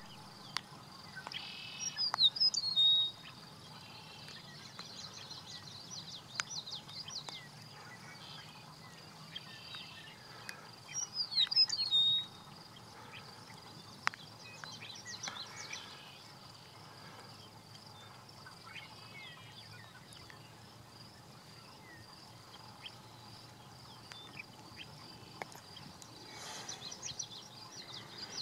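Western meadowlark singing two short songs about ten seconds apart, each a quick jumble of falling notes. Faint scattered chirps and a steady high whine sound between the songs.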